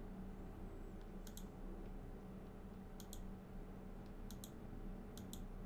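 Computer mouse clicking four times, each click a quick pair of sharp ticks, over a faint steady low hum.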